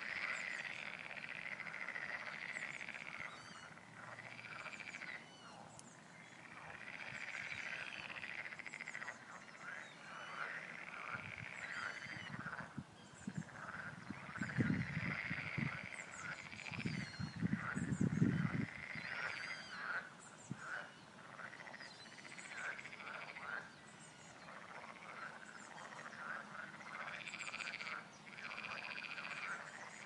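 Chorus of frogs calling, many overlapping repeated croaking calls. A deeper, louder sound comes in twice around the middle.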